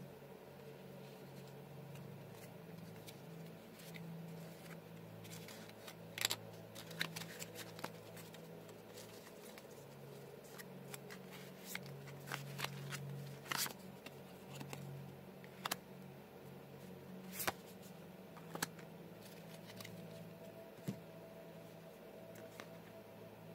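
Handling noise: scattered light clicks and taps, a few of them sharp, mostly in the middle of the stretch, over a low steady hum.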